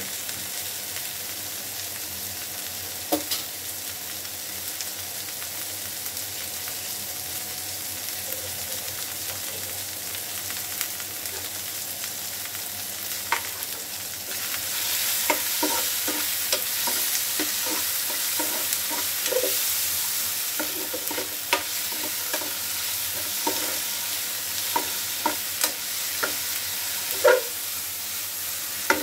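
Onion and tomato sizzling as they fry in oil in a pan, a steady hiss. About fifteen seconds in the sizzle gets louder, and a steel spoon starts scraping and knocking against the pan as the vegetables are stirred.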